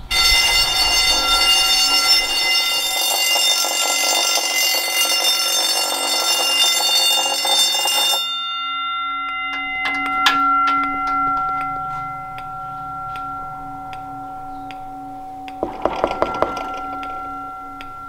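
Gentex GB10-24 10-inch electric fire alarm bell ringing loudly and continuously, its clapper striking in a rapid steady roll, with the alarm on continuous ring rather than March time; it cuts off abruptly about eight seconds in. Quieter steady tones and a few clicks follow, with a cluster of clicks near the end.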